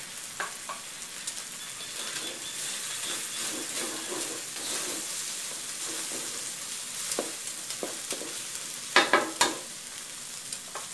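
Pork and egg sizzling in a hot wok while a wooden spatula stirs and scrapes through it. A couple of louder scrapes against the wok come about nine seconds in.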